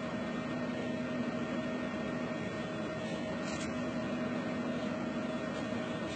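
Steady machine hum with a hiss behind it, holding two constant tones and never changing, with a faint brief tick about three and a half seconds in.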